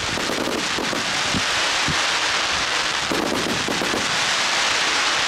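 Consumer firework cakes firing and bursting overhead: a dense run of crackling pops over a steady hiss, with a few deeper bangs among them.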